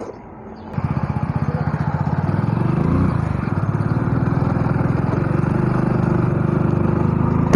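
Hero Splendor Plus single-cylinder four-stroke engine running as the motorcycle rides along a street, with steady, loud, even exhaust pulses that cut in suddenly just under a second in. The engine note rises briefly about two and a half seconds in.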